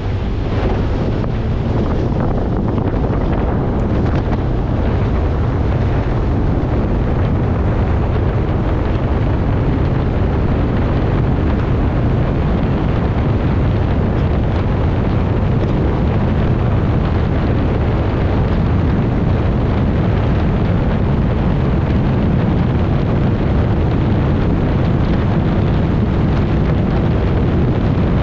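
Heavy wind buffeting the microphone over the steady running of a Mercury 60R outboard at speed, with water rushing past the small tunnel-hull boat.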